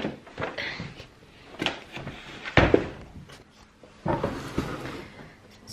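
A boxed vegetable spiralizer being handled on a table: scattered knocks and rustles of the box, with one heavy thump about two and a half seconds in, then a short scraping rustle.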